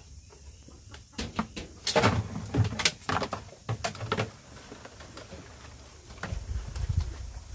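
Hard plastic objects knocking and clattering together as they are pulled and shifted in a pile of junk: a quick run of sharp knocks in the first half, then quieter handling.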